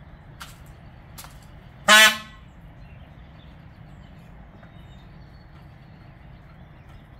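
Male Indian peafowl (peacock) giving a single loud, short call about two seconds in. A couple of faint sharp taps come before it, the bird's beak pecking seed on concrete.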